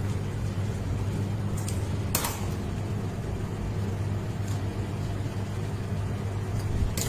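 Steady low electrical hum from a mains-powered appliance or motor, with a brief rustle about two seconds in and again near the end.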